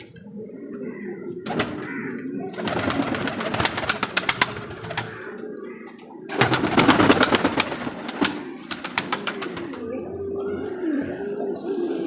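Domestic fancy pigeons cooing in a low, warbling rhythm. Twice, about three seconds in and again about six and a half seconds in, loud bursts of rapid clattering run over the cooing for two seconds or so.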